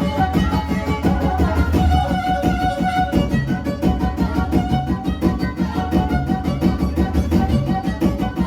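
Black Sea kemençe playing a fast horon dance tune over a keyboard (org) accompaniment with a quick, steady beat.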